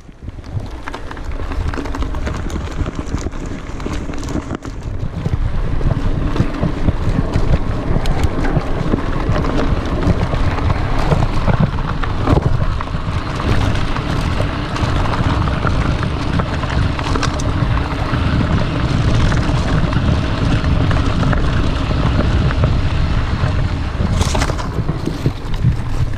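Mountain bike riding fast over a dirt forest trail: wind buffeting the microphone with the rumble of knobby tyres on earth, and small knocks and rattles from the bike over roots and bumps. It gets louder about five seconds in as the speed picks up.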